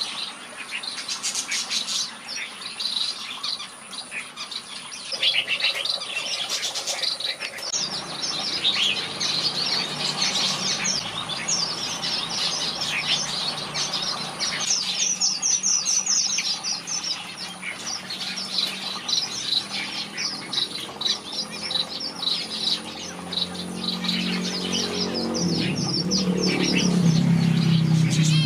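Red-whiskered bulbuls singing and chirping, a dense run of quick, high notes that goes on throughout. A low droning sound comes in partway through and grows louder over the last few seconds.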